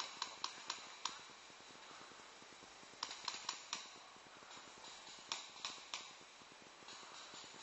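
Paintball markers firing in quick strings of about four sharp pops each: one string at the start, another about three seconds in, another about five seconds in.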